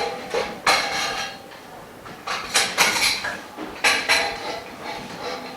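Parts of a dust-free room's frame being handled and fitted, clattering and clinking with a short ringing after some strikes: a few separate bursts of knocks and rattles.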